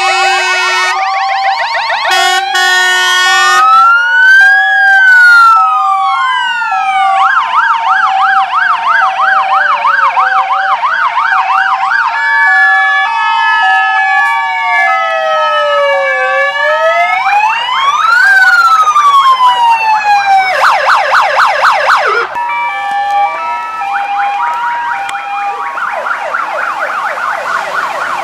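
Several fire engine sirens sounding together as a salute to the new truck. Slow wails, fast yelps and a two-tone hi-lo overlap, and the siren patterns change every few seconds.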